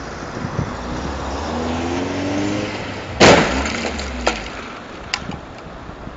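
Two vehicles colliding: an engine speeds up, then a single loud impact of the crash about three seconds in, followed by a few sharp clicks of debris.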